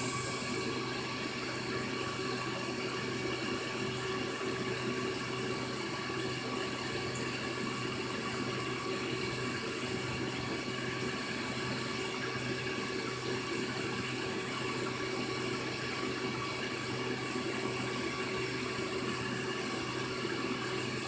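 Aquarium filter running: a steady rush of water with a faint, even pump hum, unchanging throughout.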